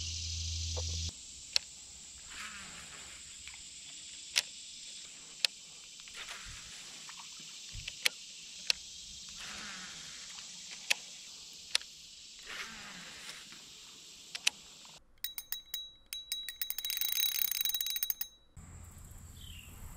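Steady high hum of insects in woodland by the water, broken by a dozen or so sharp single clicks. Near the end a separate rapid ticking with a steady high tone runs for about three and a half seconds and stops.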